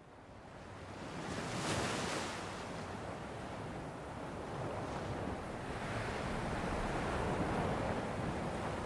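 Sea waves washing, with wind buffeting the microphone; it fades in and swells about two seconds in.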